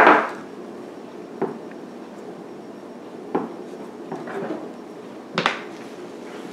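A jerky gun's metal tube and its white tamper knocking on a wooden butcher-block counter as the gun is loaded with balls of ground venison. There is a sharp knock at the start, then three lighter knocks about two seconds apart.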